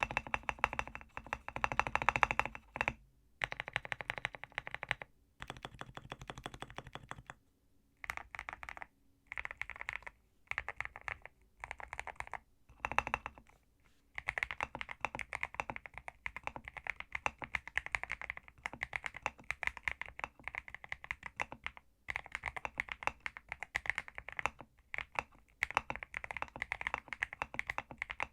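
Typing on a Zuoya GMK67 mechanical keyboard with Leobog Graywood V3 linear switches and MDA-profile keycaps: fast runs of deep keystroke clacks broken by brief pauses, giving way to steady continuous typing about halfway through.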